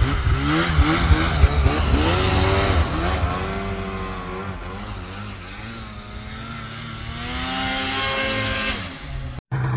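Arctic Cat Alpha One M8000 snowmobile's two-stroke twin revving up and down repeatedly as the sled powers through deep powder and rides away. It fades through the middle, swells again near the end, then cuts off suddenly.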